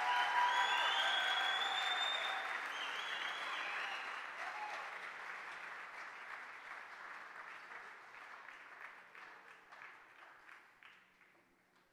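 A large audience applauding, loud at first with a few shouts over it, then fading over several seconds to scattered claps that die out near the end.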